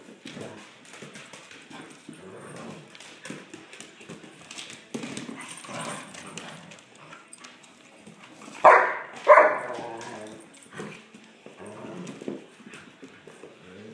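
Puppies and a golden retriever play-fighting: low play growls and whines, with two loud, sharp barks about nine seconds in. Claws click and scrabble on the hardwood floor throughout.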